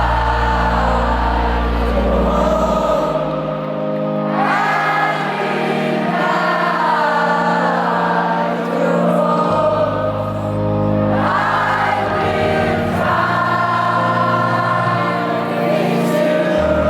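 Live band playing a slow passage with long held bass notes, under a mass of voices singing the melody together like a choir: a stadium crowd singing along with the band.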